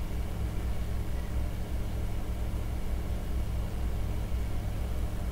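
Steady low hum with no other sound: the background hum of the recording setup.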